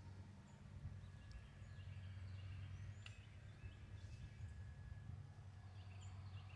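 Faint outdoor ambience: a steady low rumble with scattered faint bird chirps and thin whistles.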